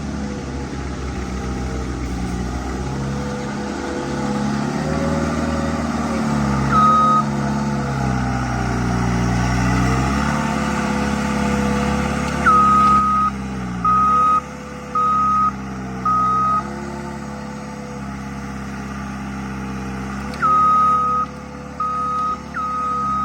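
Skid steer engine running steadily, its pitch dipping and shifting as the machine works. Its reversing alarm beeps once about seven seconds in, four times around the middle, and three times near the end.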